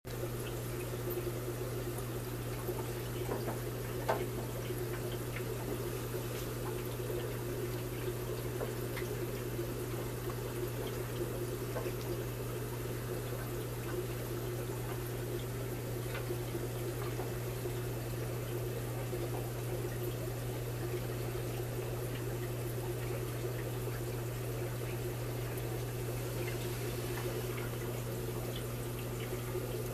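Aquarium equipment running: a steady low hum with water trickling and splashing into the tank, and a few faint clicks.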